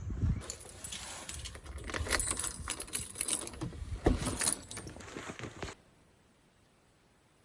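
A bunch of keys jangling and clicking for about five seconds, then it cuts off suddenly to faint room tone.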